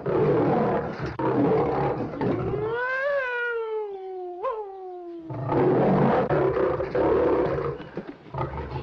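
A lion growling in two long rough stretches, with a long wailing tone between them that rises, then slowly falls.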